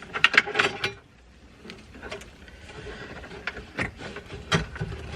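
Car stereo wiring cables and plastic connectors being handled and pulled out, giving scattered clicks and rattles that are busiest in the first second.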